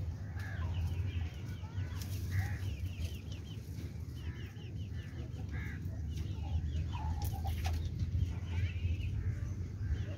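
Chickens clucking, with quick runs of high chirps scattered throughout, over a steady low hum.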